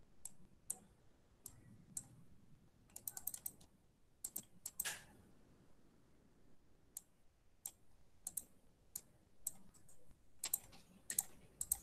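Faint clicks of a computer mouse and keyboard, scattered single clicks with a few quick runs of several in a row.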